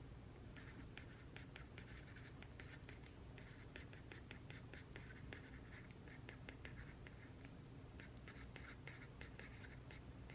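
Pen writing on paper: quick, irregular scratching strokes with short pauses between words, faint over a low room hum.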